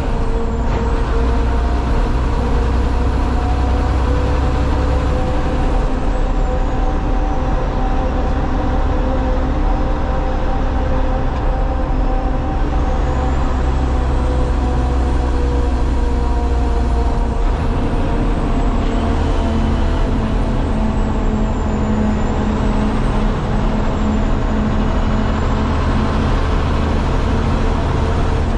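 Cummins X15 inline-six diesel of a Kenworth T800 dump truck pulling on the road, heard from inside the cab along with road noise. The engine note sinks slowly through the middle, and the low rumble changes about 17 seconds in.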